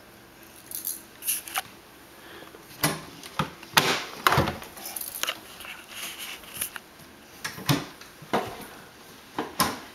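Irregular knocks and clacks of a child handling a wooden toy kitchen: small doors opened and pushed shut, plastic toy dishes and utensils knocked together, about a dozen short taps spread out with gaps between.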